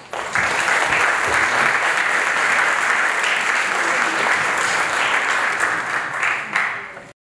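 Audience applauding: a steady round of clapping that cuts off suddenly near the end.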